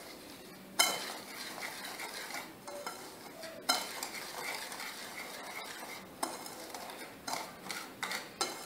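Wire balloon whisk stirring a dry mix of flour, semolina and sugar in a ceramic bowl: a steady scratchy swishing, with sharp clinks of the whisk wires against the bowl a few times, coming faster near the end.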